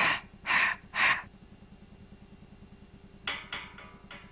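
Three footsteps in dry fallen leaves, about half a second apart. After a pause, near the end, a few short sharp clinks of metal hand tools against a plastic toolbox.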